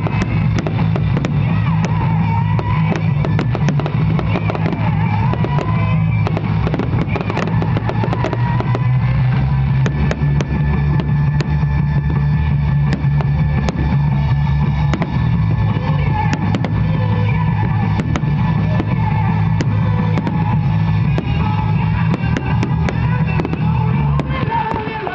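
Fireworks bursting, with rapid bangs and crackles, over loud music. The music stops near the end.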